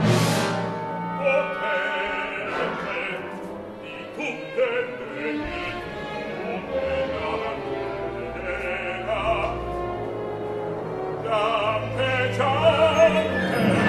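Opera music: an orchestra playing slow, sustained chords over low held bass notes, with a singing voice at times.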